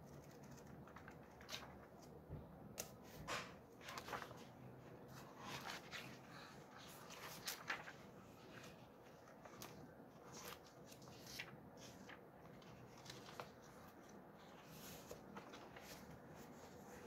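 Pages of a thick paperback Bible commentary being leafed through by hand: faint, scattered paper rustles and flicks, several quick ones close together a few seconds in and again around the middle.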